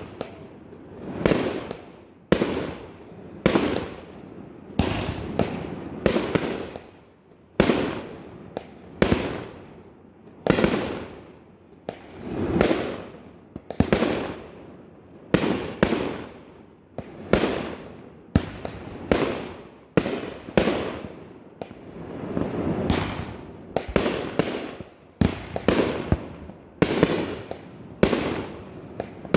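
A fireworks display: a continuous run of sharp bangs, one to two a second, each trailing off in a rolling echo, with stretches of crackling between some of them.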